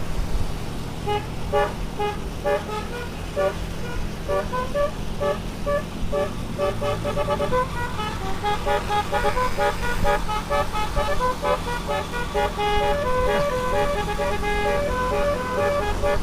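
Basuri keong telolet horn, a multi-tone musical vehicle horn, playing a quick tune of short stepped notes starting about a second in. A steady low hum runs underneath.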